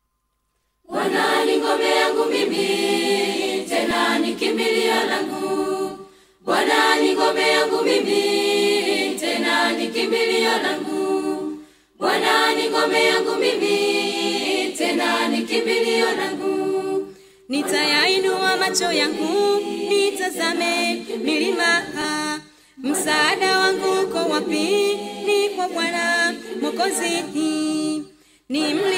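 Unaccompanied choir singing a Swahili gospel song. It comes in about a second in and moves in phrases of about five seconds, each followed by a short break.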